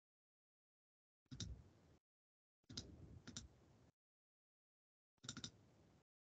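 Faint clicking on a computer, heard over a video-call microphone: three short bursts of a few clicks each, with dead silence between them.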